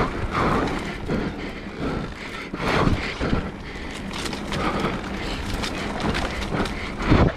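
Mountain bike rolling fast down a dirt singletrack: tyres on dirt and dry leaves, with knocks and rattles from the bike over bumps. A louder knock comes about three seconds in and another near the end.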